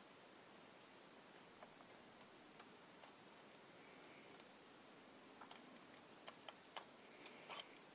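Small scissors snipping through card, heard as faint, scattered clicks that come more often in the last few seconds.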